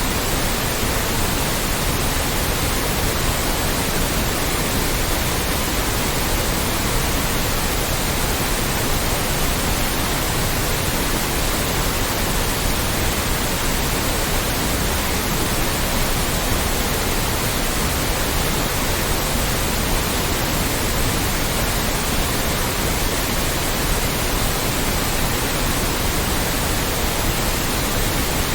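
Loud, steady white noise: an unchanging hiss spread evenly across all pitches, with no breaks or variation.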